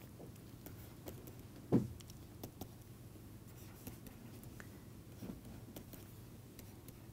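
Faint clicks and taps of a stylus writing on a tablet screen, over a low steady hum, with one soft thump about two seconds in.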